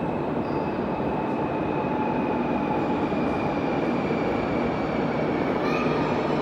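Commuter train approaching through the tunnel into an underground station: a steady, slowly building rumble with a faint high whine that drifts down in pitch, and a brief higher note near the end.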